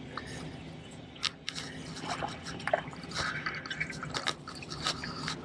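Small splashes and water dripping as a hooked queenfish is reeled to the surface on a light spinning rod, with scattered small clicks.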